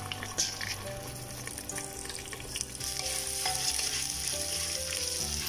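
Washed basmati rice frying in hot oil in a pressure cooker, sizzling as a spoon stirs it, with short scrapes of the spoon against the pot. The sizzle grows a little louder about halfway through.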